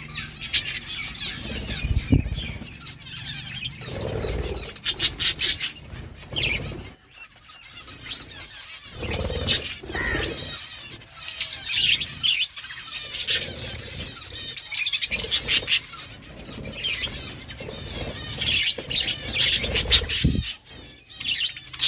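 Budgerigars chirping and chattering while eating seeds. There are bursts of rapid clicking twice and a few low thumps.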